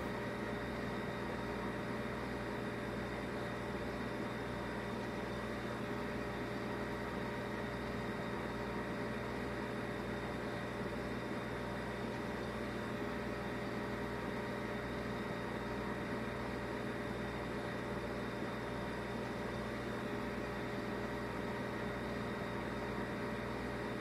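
Steady hum with a constant hiss beneath it, unchanging throughout, with no voice or music.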